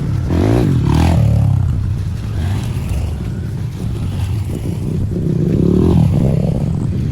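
A vehicle engine revving under load, rising in pitch about half a second in and again around five to six seconds in, as it works over a rough, pot-holed dirt road.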